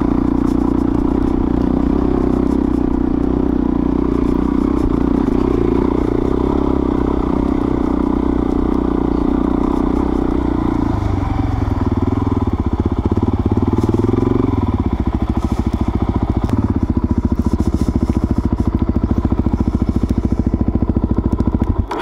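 Suzuki DR-Z400S single-cylinder four-stroke engine running as the dirt bike is ridden on trail. The note changes about eleven seconds in, and from about fifteen seconds it runs at low revs with an even, chugging pulse.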